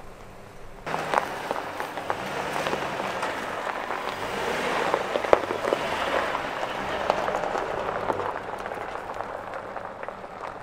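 2007 Chevy Silverado pickup rolling slowly over a gravel-and-dirt trail: its tyres crunching and crackling over small stones, with the engine's low note rising and falling underneath. The crunching starts abruptly about a second in and fades near the end.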